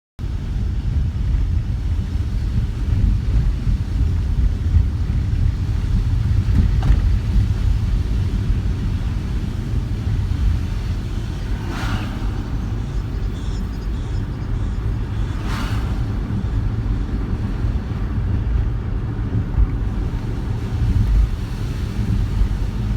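A car driving, heard through a dashboard camera's microphone: a steady low rumble of road and engine noise. Two brief hissing swells come a few seconds apart about halfway through.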